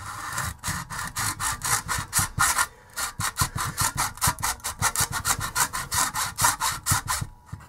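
Hacksaw cutting into the plastic casing of a laptop battery pack, in rapid even strokes about five a second, which stop shortly before the end.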